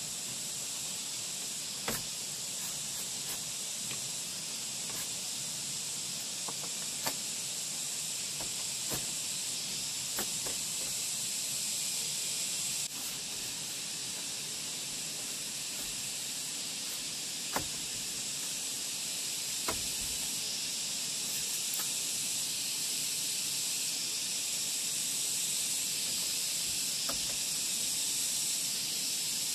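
Steady high-pitched drone of forest insects, with scattered light clicks and taps of thin bamboo strips being woven into a hut wall.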